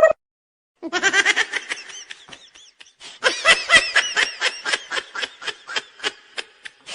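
A laughing sound effect: a run of quick, high-pitched laughter starting about a second in, a short pause, then a second, louder burst of rapid giggling.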